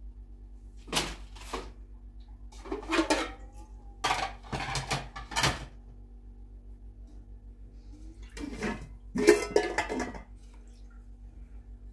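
Pots, dishes and utensils clattering and knocking in several short bursts over a steady low hum.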